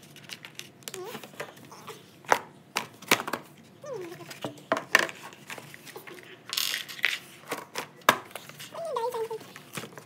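Pay Day board game pieces being packed away: cards, dice and plastic pawns tapped and set into the cardboard box in a string of light clicks and knocks, with a sliding rustle of cardboard about seven seconds in.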